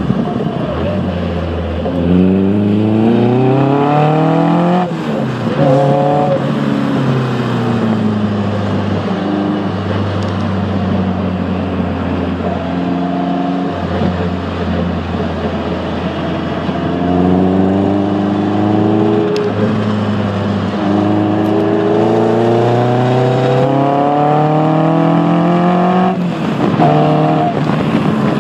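Caterham R300's four-cylinder engine heard from the driver's seat, accelerating hard with the revs climbing and dropping sharply at each gear change, easing to a steadier note midway, then pulling up through the gears again.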